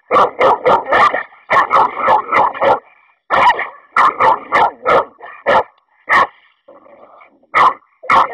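American Staffordshire Terrier barking loudly in a rapid series of short, sharp barks at an unfamiliar dog, with a brief lull a little past the middle.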